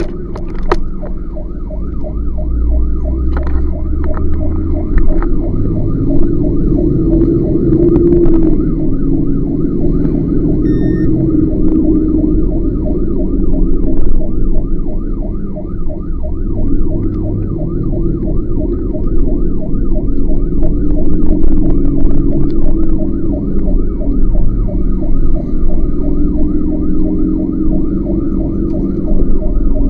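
Fire engine siren heard from inside the cab while the truck drives on a call, quickly rising and falling about twice a second. The truck's engine drones loudly underneath.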